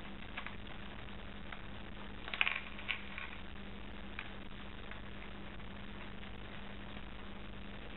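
Plastic LEGO bricks being handled: a few small clicks and a short clatter about two and a half seconds in, over a steady low electrical hum.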